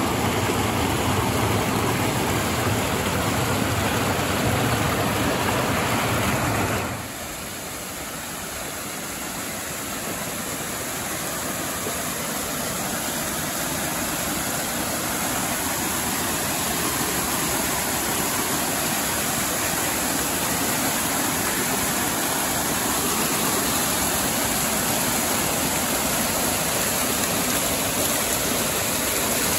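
Creek water rushing and cascading over rocks and logs, a steady hiss. About seven seconds in it drops suddenly to a softer level and loses its low rumble, then slowly builds back up.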